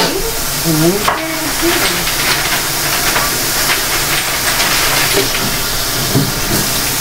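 Kitchen tap running steadily into the sink with a loud, even hiss, with water splashing over a metal pot.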